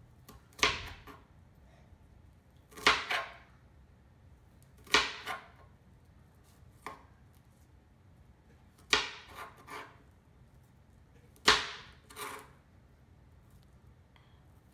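Kitchen knife chopping an onion on a plastic cutting board: slow, irregular chops, each a sharp knock of the blade on the board, about ten in all with pauses of a second or two between them.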